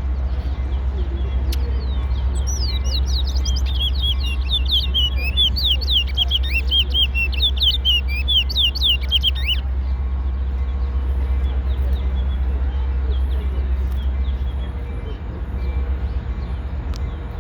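A small seed finch singing a fast, rapid song of quick down-slurred chirps for about seven seconds, starting a couple of seconds in. A steady low rumble runs underneath.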